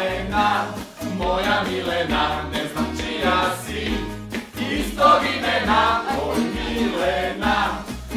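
A group of male and female voices singing together in chorus, accompanied by a strummed acoustic guitar.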